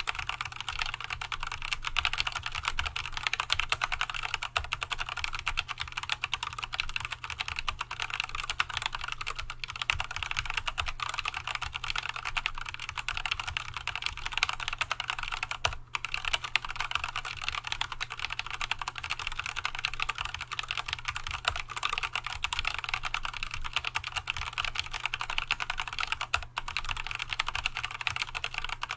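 Fast, continuous typing on an Archon AK87 hot-swap tenkeyless mechanical keyboard fitted with unlubricated Tealios V2 linear switches (65 g) and Leopold keycaps: a steady stream of keystroke clacks, with a brief break about sixteen seconds in.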